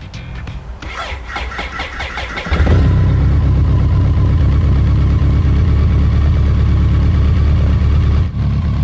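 BMW K100RS inline-four engine cranking on the electric starter for about two and a half seconds, then catching and running steadily at idle. It gets slightly quieter near the end.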